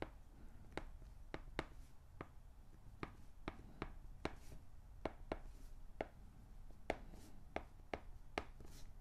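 Faint, irregular taps and light scratches of a stylus on a tablet screen while writing by hand, about two or three taps a second, over a low steady hum.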